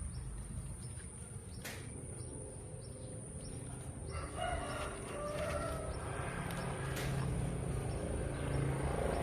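A rooster crowing once, a call of about two seconds starting about four seconds in. Behind it runs a steady high-pitched whine, with a few sharp clicks.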